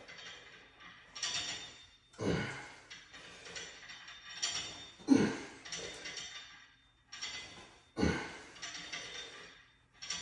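Heavy breathing during a set of cable chest flies: a forceful exhale with each rep, about every one to three seconds, with quicker breaths drawn in between.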